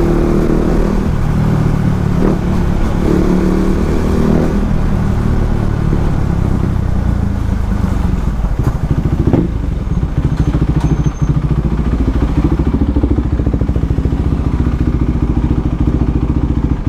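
Motorcycle engine running under way. Its pitch rises and falls with the throttle over the first few seconds, then it settles into a steadier drone with a few light clicks.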